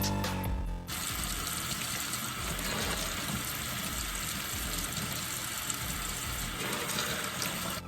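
Tap water running in a steady, even rush that cuts in about a second in and stops just before the end, with electronic music heard briefly before it.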